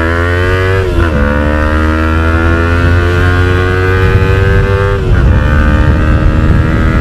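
Yamaha MT-03's 321 cc parallel-twin engine with an aftermarket exhaust, pulling under hard acceleration. Its pitch climbs, dips at an upshift about a second in, climbs steadily again and dips at a second upshift about five seconds in.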